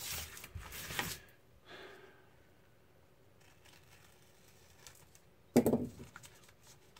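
Painter's tape and thin styrene sheet rustling and crinkling as hands press the tape down around a small mold box, then a sharp knock about five and a half seconds in as a metal hobby knife is laid down on the foam-board bench, with a few light clicks after it.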